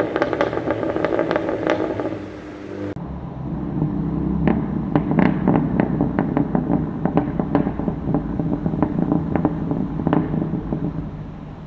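BMW engine running, its exhaust popping and crackling in quick, irregular sharp bangs: the anti-lag-style pops-and-bangs tune that the uploader calls anti-lag. The sound dips briefly about three seconds in, then the engine and the crackling go on.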